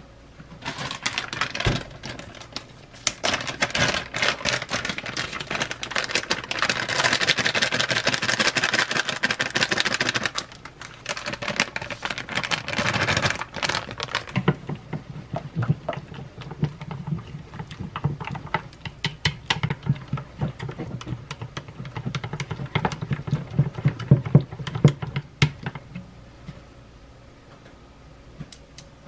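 Wooden chopsticks whisking runny tempura batter in a bowl, clicking fast against the bowl's sides in two spells with a short pause between them, as more flour is beaten in.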